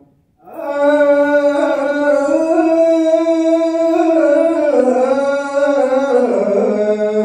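Ethiopian Orthodox liturgical chant: after a brief pause, a long, drawn-out sung line with slow melismatic turns, stepping down in pitch about five and six seconds in.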